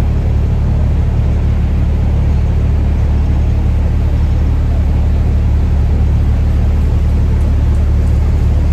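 Steady low rumble of a moving vehicle's engine and running noise.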